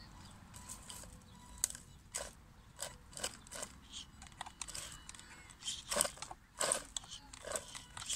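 Irregular crunches and scrapes of gravel and dry brush under a WLtoys 12428 RC crawler's tyres as it pushes against a bush and struggles for grip, with two louder crunches about six seconds in.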